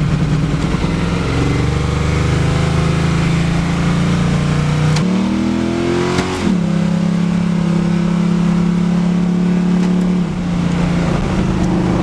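Truck engine running under load. It rises in pitch about five seconds in, then drops abruptly at a gear change, and steps down again near the end.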